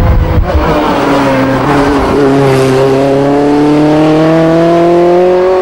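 Lancia 037 rally car's supercharged four-cylinder engine accelerating hard, its pitch climbing slowly and steadily through one long pull.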